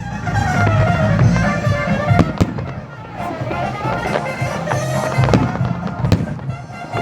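Fireworks going off, with a few sharp bangs: one about two and a half seconds in and two more near the end. Music with a melody line plays throughout.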